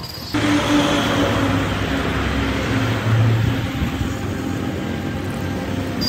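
Bread pakodas sizzling in shallow oil on a large flat griddle. The hiss starts suddenly just after the start, with a steady low motorcycle engine hum under it.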